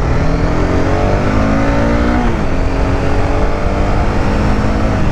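Honda CBR300R single-cylinder motorcycle engine accelerating under way. Its pitch rises for about two seconds, drops at an upshift, then climbs again. Heavy wind rumble on the microphone runs underneath.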